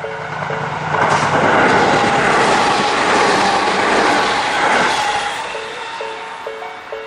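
A train passing over a Japanese level crossing: a loud rush of wheel and rail noise builds about a second in and fades from about five seconds. The crossing's warning bell rings about twice a second throughout; it is drowned out while the train goes by and heard clearly again near the end.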